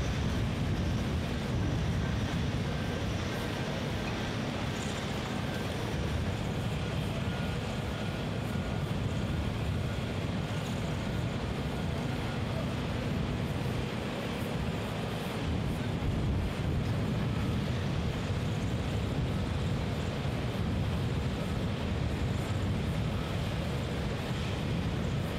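Steady low rumble of wind on the microphone mixed with heavy machinery running at a distance, with a faint high whine coming and going.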